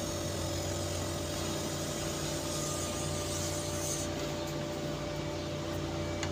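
Steady hum of running machinery with a broad hiss; the highest part of the hiss drops out about four seconds in.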